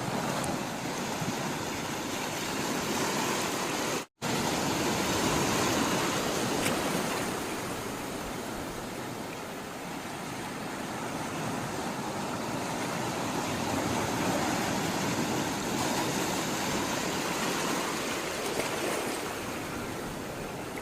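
Sea water rushing and washing, a continuous noise that swells and eases slowly. The sound cuts out completely for an instant about four seconds in.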